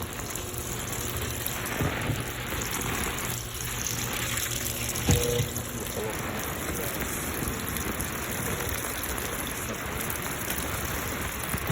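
Water gushing steadily into the open drum of a Midea 13 kg top-load washing machine as it fills, with a brief knock about five seconds in.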